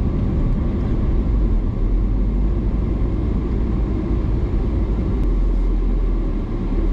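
Steady engine and road noise inside the cabin of a moving Subaru STI, a constant low-pitched rumble.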